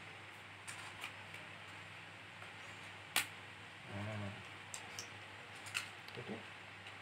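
Hard plastic toy car park pieces clicking and clacking as a ramp section is handled and fitted onto the tower, with one sharp snap about three seconds in. A brief low hum comes about a second later.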